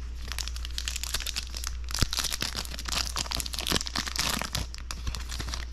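Foil wrapper of a Magic: The Gathering draft booster pack crinkling and tearing as it is pulled open by hand: a dense run of crackles, thickest in the middle, with one sharper snap about two seconds in.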